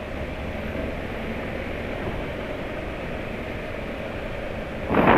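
Steady riding noise from a Yamaha motorcycle moving slowly through town traffic: the engine running under a wash of wind and road noise on the bike-mounted microphone. A short, louder burst of noise comes just before the end.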